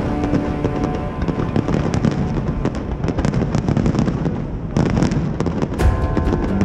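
Aerial fireworks going off in a rapid, irregular string of bangs and crackles, with music playing underneath, its held notes fading out early and returning at the very end. A heavier cluster of bangs comes about five seconds in.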